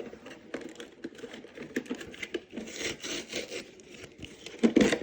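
Small toy packaging being handled and pulled open: irregular scraping, rubbing and crinkling with small clicks, and a louder knock near the end.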